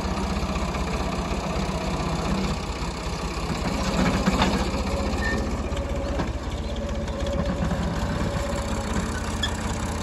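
Ford 3610 tractor's three-cylinder diesel engine running steadily under load as it pulls a seed planter, swelling briefly a few seconds in.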